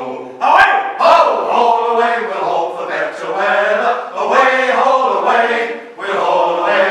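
Male shanty choir singing unaccompanied in several-part harmony, in long held phrases with short breaks for breath between them.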